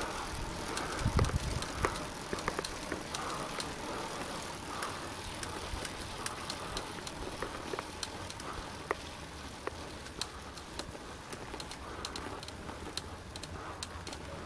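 Road bike riding on asphalt, heard from a camera on the bike: steady rolling and wind noise with scattered light clicks. It cuts off abruptly at the end.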